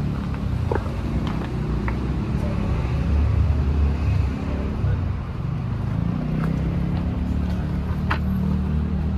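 Street traffic: car engines running close by, a steady low hum with a few faint clicks over it.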